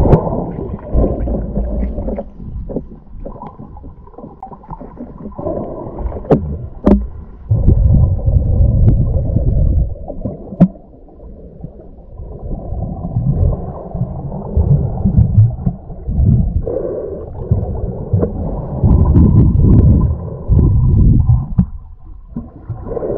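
Muffled underwater rumble of water moving around an action camera's waterproof housing while a spearfisher swims underwater, swelling and fading every few seconds. A few sharp clicks sound through it.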